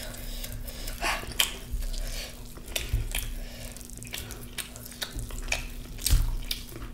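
Close-miked eating sounds: a person chewing food, with a run of irregular mouth clicks and smacks over a faint steady hum.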